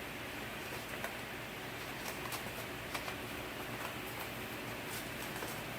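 A few faint, light clicks from plastic door-panel parts and wiring being handled, over a steady background hiss.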